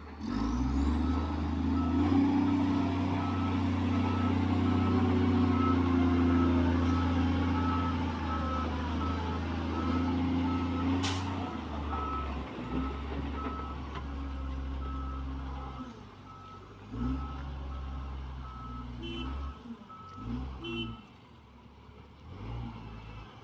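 Heavy diesel construction machine running, with its reversing alarm giving steady, evenly spaced beeps at one pitch until near the end. The engine is loudest for the first half, then drops and surges several times, and there is one sharp click about eleven seconds in.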